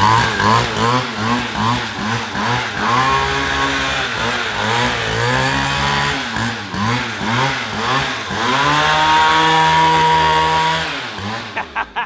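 Mini moto's small petrol engine revved again and again, its pitch rising and falling. Near the end it is held at a high steady rev for about two seconds, then drops back.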